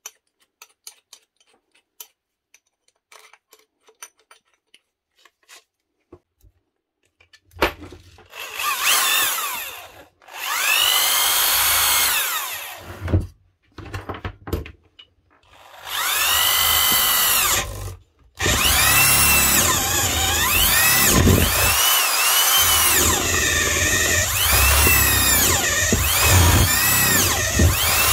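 A few light clicks as a flat spade bit is fitted into the chuck, then a Makita 8410BV corded electric drill runs in three short bursts and one long run, boring into timber with the spade bit. Its whine falls and rises in pitch as the bit loads and frees.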